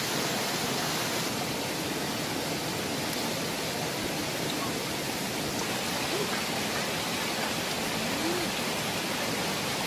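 Steady rush of a small forest stream cascading over rocks.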